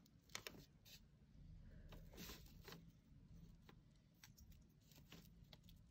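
Faint handling noise: a few short light clicks, scrapes and rustles of hands moving a drawing compass and pencil over a sheet of paper on a table.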